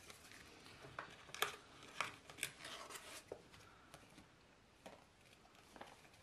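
Paper documents and a clear plastic sleeve being handled: faint rustling and crinkling with several short, sharp crackles, the loudest about one and a half and two seconds in.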